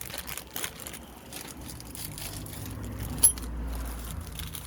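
Small metal parts being handled, with light rattles and clicks and one sharp metallic clink about three seconds in.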